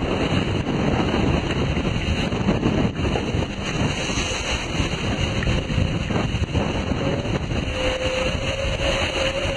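Wind buffeting the microphone over the rush of water along the hull of a racing sailboat under way at speed. A faint steady tone joins in near the end.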